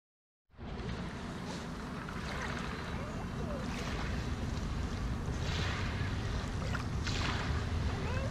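Small waves lapping and washing up over sand at the water's edge, swelling softly every second or two, with wind rumbling on the microphone. The sound cuts in about half a second in, after silence.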